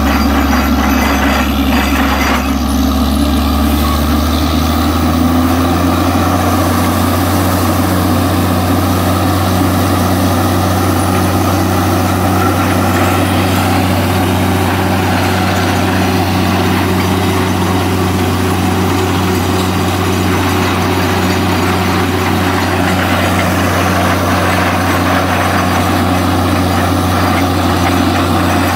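Heavy engine of a borewell drilling rig running steadily at a loud, constant level. Its low hum steps up a little in pitch a few seconds in, then holds.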